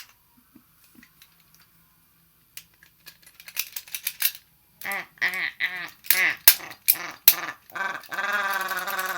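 A girl's voice making silly wordless animal-like noises: a string of short quacking, bleating syllables, then a long wavering held note near the end. Before that, a quick run of light clicks and rattles.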